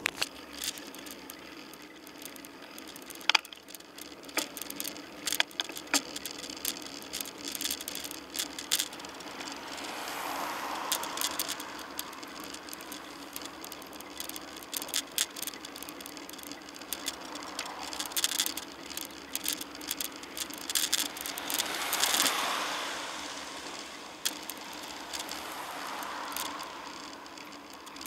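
Bicycle ridden along a tarmac road, seen from its own mounted camera: many sharp rattling clicks from the bike over the road surface over steady road noise. Several passing cars swell up and fade away, the loudest about three quarters of the way through.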